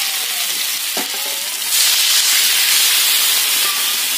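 Water poured into a hot karai (wok) of fried potatoes and spice paste, sizzling and hissing as it hits the hot oil. The hiss gets louder about two seconds in.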